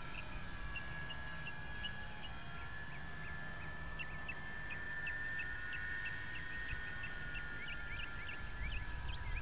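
Electric motors and propellers of FMS PT-17 Stearman RC biplanes whining steadily overhead, the pitch drifting slowly. Small birds chirp over it again and again, more thickly near the end, with wind rumbling on the microphone.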